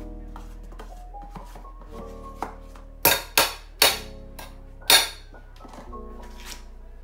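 Background music, with a cluster of sharp knocks of a utensil against a pot about halfway through, four loud ones within two seconds, as boiled sweet potato is mashed.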